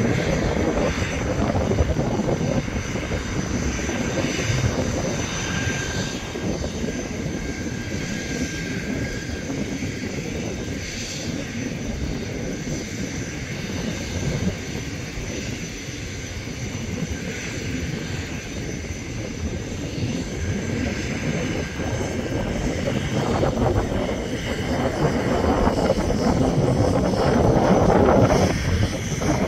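Airbus A350-1000's Rolls-Royce Trent XWB-97 turbofans running, a continuous jet rumble with a thin steady whine on top, easing a little in the middle and growing louder near the end.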